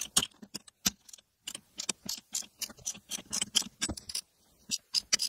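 A run of sharp, uneven metallic clicks and clinks from a ratchet with a T50 Torx bit and a steel pipe slipped over its handle for leverage, as the freshly broken-free seat bolt is worked and the pipe is pulled off and set down.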